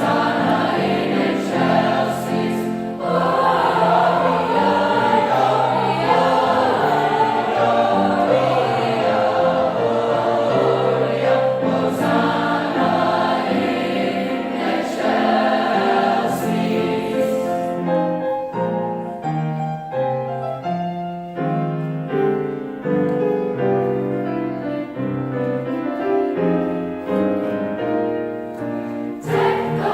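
High school choir singing a Christmas concert piece. A little past halfway the full sound thins to a quieter passage of separate held notes, and the full choir returns near the end.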